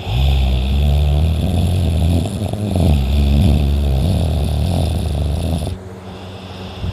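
A teenage boy snoring loudly in his sleep: one long, low snore lasting about six seconds that drops off sharply, then quieter breathing.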